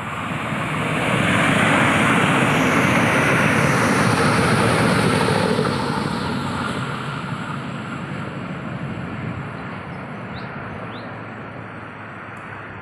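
KTM ETS electric train passing at speed: a rushing of wheels on rail and air that builds over about two seconds, holds for a few seconds, then fades as the train draws away. A faint high whine falls in pitch as it goes by.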